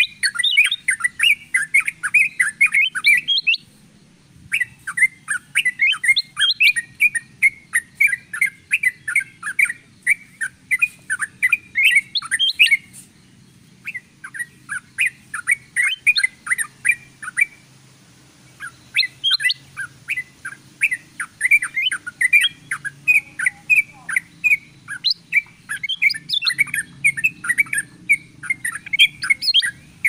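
Bird-lure recording of yellow-vented bulbuls (trucukan) mixed with kutilang emas bulbuls, a busy chatter of short, quick chirping notes. The chatter breaks off briefly about 4, 13 and 17 seconds in.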